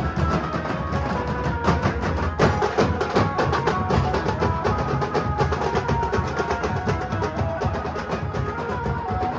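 Nashik-style dhol drums playing a fast, dense beat with rapid strokes and rolls. Changing pitched notes run over the drumming.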